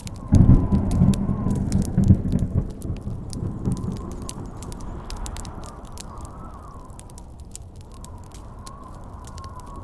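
A thunderclap breaks in suddenly just after the start, then rumbles low and fades away over about four seconds. Campfire crackling, with sharp pops, goes on throughout, and a howling wind whistles on a wavering high tone behind it.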